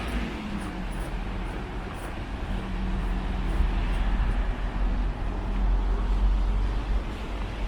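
Street traffic: a vehicle engine running with a steady low hum over a deep rumble.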